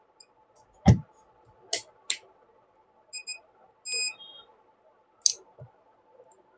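Digital multimeter in continuity mode giving short beeps as its probes touch the circuit: two quick beeps about three seconds in and a longer one about four seconds in. Sharp clicks and a thump come from the probes and the circuit board being handled.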